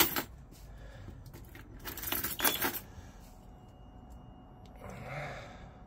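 A sharp click, then a key ring jangling for about a second as the ignition key is turned in the ATV and the dash powers up, followed by a faint steady high-pitched whine.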